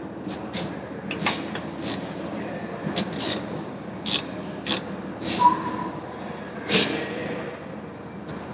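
Irregular clicks and light knocks of tools and parts being handled during an oil change, about a dozen, with one short metallic ring about halfway through, over a low steady hum.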